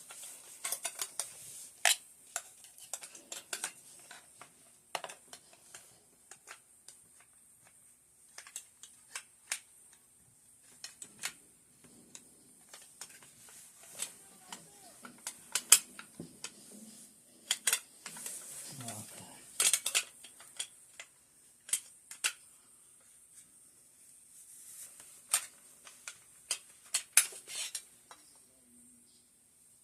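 Irregular sharp metallic clicks and clinks of AK-47 rifle parts being handled and fitted.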